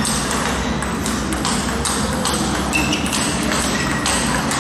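Table tennis balls clicking and pinging in irregular succession off tables and bats, from several tables in play at once, over a steady low hum.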